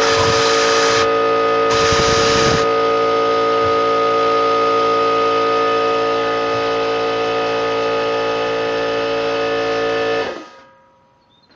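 Air compressor running steadily, with two loud bursts of compressed air hissing out of a loose spray-gun air adjusting valve in the first three seconds. The running stops suddenly about ten seconds in.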